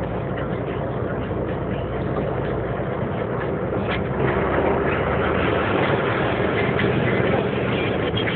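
Truck engine running with road noise, heard from inside the cab while rolling slowly in traffic: a steady low drone that grows a little louder about halfway through.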